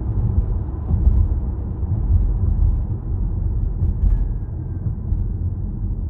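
Low, steady rumble of a 2022 Ford Mustang Mach-E rolling with the brakes applied. The owner hears a light drag or grind in it, which he puts down to rust patches on a slightly warped rotor.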